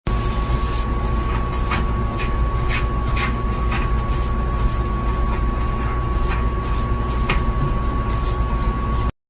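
Steady low mechanical rumble carrying a constant high tone and a fainter lower one, with scattered light clicks.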